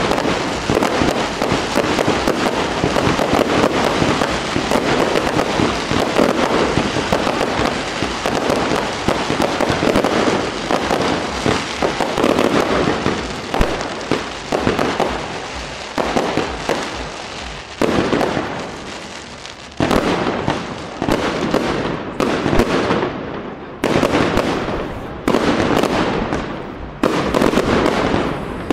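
Fireworks display: a dense, rapid run of bangs for the first half, then separate shell bursts about every one to two seconds, each trailing off.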